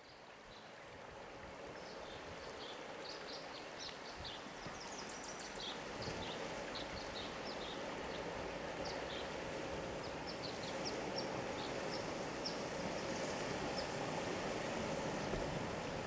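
Steady rushing outdoor noise with small birds chirping repeatedly, while a 2008 Toyota Tacoma pickup approaches slowly over a wooden bridge, its engine hum growing gradually louder.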